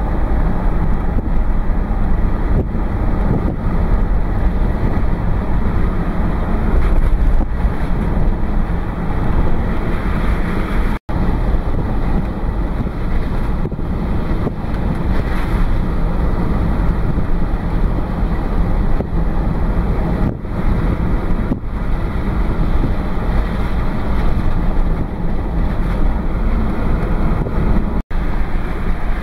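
Steady road and wind noise inside a moving car, with a heavy low rumble. The sound cuts out for an instant twice.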